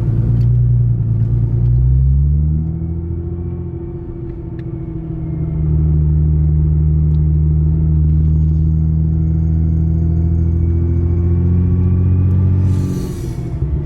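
Car engine heard from inside the cabin, rising in pitch as it accelerates over the first couple of seconds, easing off briefly, then holding a steady drone before falling away near the end.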